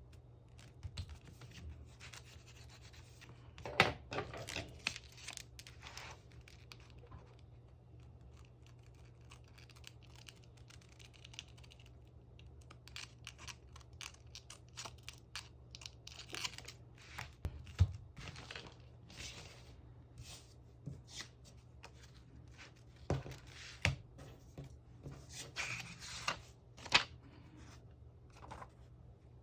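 Scrapbook diary crafting: paper and tape being handled, with intermittent tearing and rustling and scattered taps, the sharpest about four seconds in, over a faint steady low hum.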